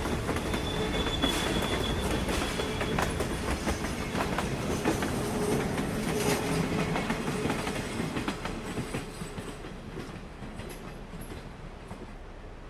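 Train passing close by, its wheels clattering over the rail joints, with a thin high wheel squeal in the first few seconds. The sound fades steadily over the last few seconds as the train draws away.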